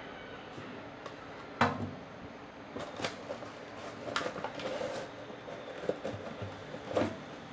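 A few knocks and rattles over a steady hiss. The loudest knock comes about a second and a half in, with smaller ones a few seconds apart after it.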